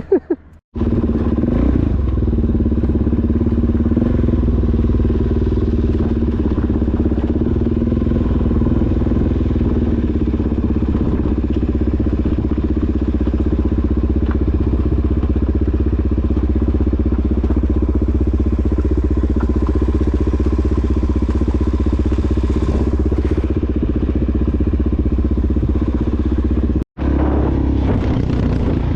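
Dirt bike or supermoto motorcycle engine running while being ridden, holding a fairly steady engine speed, with low rumble. The sound cuts out briefly twice, once just after the start and once near the end.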